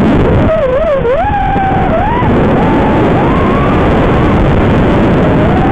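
Armattan Marmotte FPV quadcopter's four Rotor Riot Hypetrain 2306 2450 kv brushless motors whining through the props, the pitch sliding up and down with the throttle, over a loud rush of prop wash and wind. Heard through the drone's onboard microphone.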